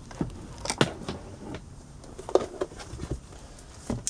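Handling noises of papers and booklets being searched through in a folder: scattered light knocks, clicks and rustling.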